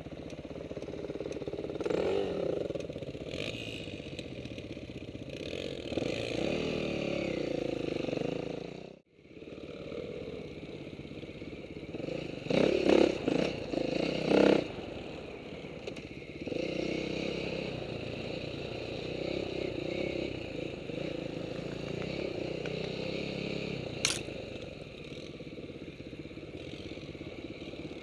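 Dirt bike engine running as heard from a helmet-mounted camera, revving up and down as the bike rides a trail, with clatter over the rough ground. The sound cuts out abruptly about nine seconds in. It has a few louder surges of revving around thirteen to fifteen seconds, and there is a sharp knock near the end.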